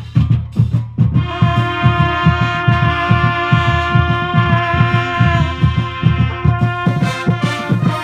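Marching band playing in the stands: the drums keep a steady beat alone at first, then the trumpets and other brass come in about a second in, holding long notes over the drumbeat.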